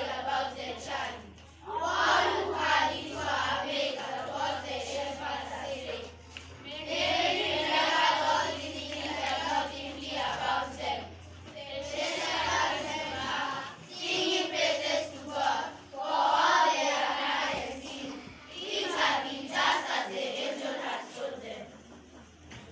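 A group of children's voices in unison, singing or chanting in about five phrases with short breaks between them.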